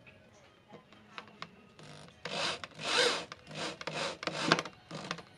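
Electric drill driving wood screws into a wooden axe handle in several short runs, the screws grinding into the wood; a few light clicks of handling come first.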